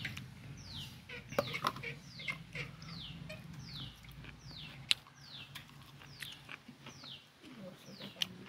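A chick peeping over and over, each peep a short note falling in pitch, with a few sharp clicks of metal tools, the loudest about a second and a half in and again near five seconds.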